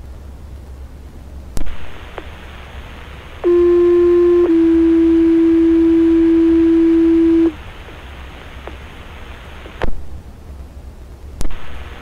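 Fire-department two-tone alert page heard over a scanner radio: a steady tone of about a second, then a slightly lower tone held for about three seconds, the signal that sets off the station's pagers. Under it is radio hiss, with squelch clicks before and after the tones.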